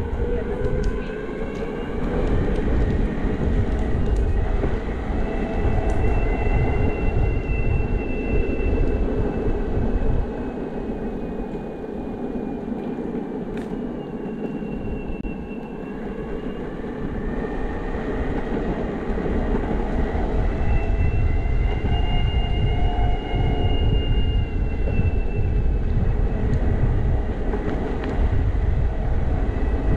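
Electric skateboard motor whine, rising and falling in pitch with speed, over a heavy low rumble of wind on the helmet-mounted microphone and wheels rolling on the pavement. The rumble eases for a few seconds in the middle.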